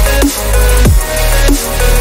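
Electronic intro music with a heavy, sustained bass and a falling pitch sweep repeated about every two-thirds of a second.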